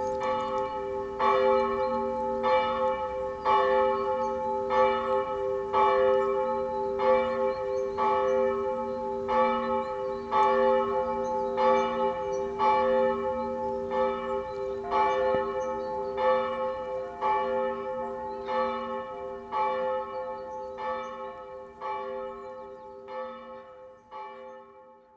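A bell tolling steadily, struck about once a second, each stroke ringing on into the next, fading out near the end.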